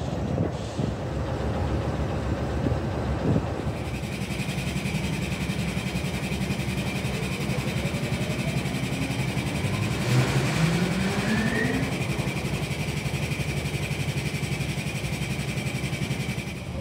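Diesel engine of a GE B32-8 road locomotive, a 12-cylinder GE FDL, running steadily with a high steady whine over it. About ten seconds in, its pitch rises for a couple of seconds as the engine revs up.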